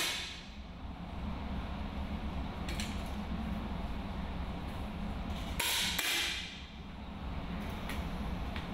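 Compressed-air 10 m match rifles firing on an indoor range: a sharp pop with a short echo right at the start, a fainter one about three seconds in, and a louder pair of pops about six seconds in, with a few fainter clicks near the end. A steady low hum runs underneath.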